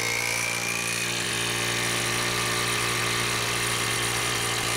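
JSD Hope cordless impact wrench on a Makita 18V 4 Ah battery hammering continuously against a hydraulic test load, one steady unbroken run, sped up to double speed.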